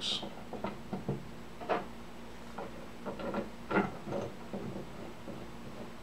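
Light scattered clicks and knocks of plywood rack pieces and small metal hardware being handled during assembly, with a few slightly louder taps.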